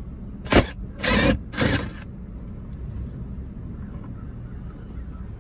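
Cordless power driver with a 7 mm socket run in three short bursts, the first the shortest, backing out a screw from a dashboard panel.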